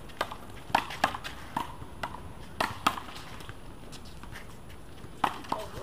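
Small rubber handball being slapped by hand and smacking off a concrete wall and court during a rally: a series of sharp slaps, several in quick pairs about a third of a second apart.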